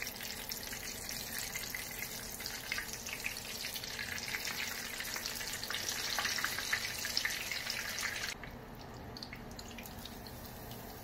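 Eggplant omelette frying in shallow oil, a dense sizzle full of small pops and crackles. It grows louder toward the middle and drops off suddenly about eight seconds in.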